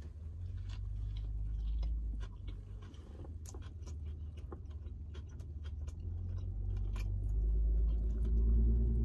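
A man biting into and chewing a burger close to the microphone: many small wet mouth clicks and smacks. Under it runs a steady low rumble that grows louder in the second half.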